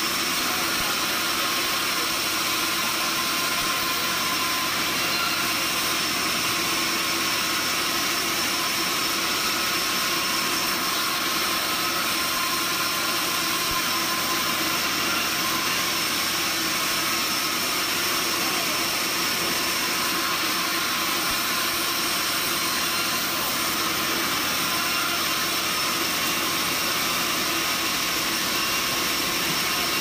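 Sawmill band saw machinery running steadily, an even mechanical hum and whine that does not change.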